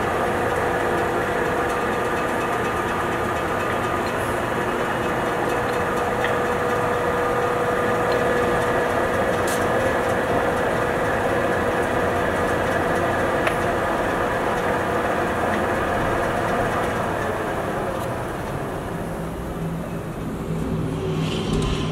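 Enco 14" x 40" engine lathe running under power: a steady mechanical hum with several steady whining tones. The sound eases off and dies down about 18 seconds in.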